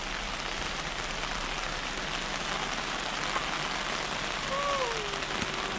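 Steady rain falling, an even hiss, with a short voice call near the end.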